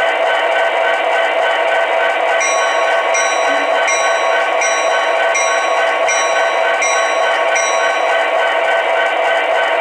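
MTH Protosound sound system in an HO SD70ACe model, playing a simulated diesel locomotive idle through the model's speaker. From about two seconds in, the locomotive bell rings steadily, about eight strikes at roughly one and a half per second, stopping shortly before the end.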